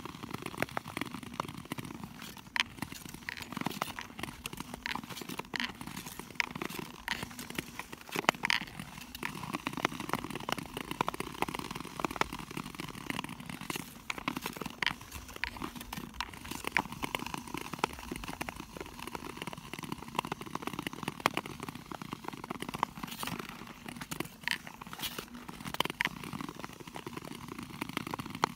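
Ice skate blades scraping across clear, cracked lake ice, a continuous hiss broken by many sharp irregular clicks and crackles.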